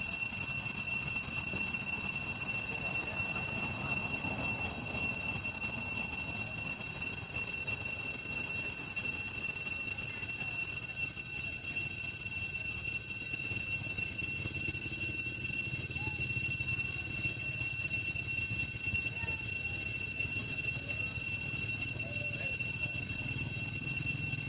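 Insects droning in a steady high whine that holds one unchanging pitch with a higher overtone, never pausing.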